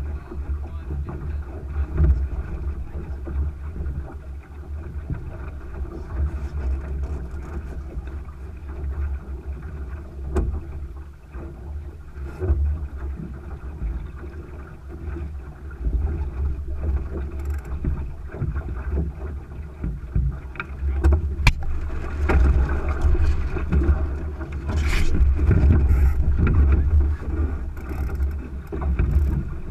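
Wind buffeting the microphone and water rushing along the hull of a Thistle sailing dinghy under sail, with a few sharp knocks; it grows louder for a while near the end.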